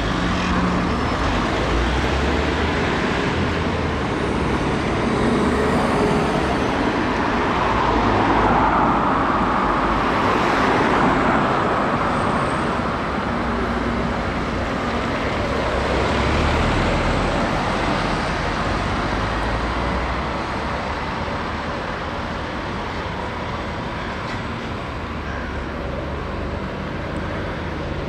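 Alexander Dennis Enviro400 MMC hybrid double-decker bus pulling away and passing close by among steady road traffic, loudest about ten seconds in, then fading.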